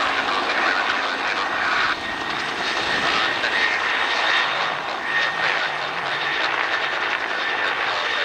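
Bell 212HP helicopter flying low and close: the rush of its two-blade main rotor with a steady high turbine whine over it from the twin turboshaft engines.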